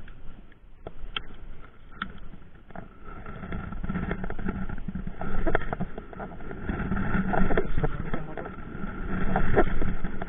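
A few sharp clicks from a baitcasting reel being handled, then wind buffeting the microphone and water moving around a small wooden boat, swelling louder every couple of seconds.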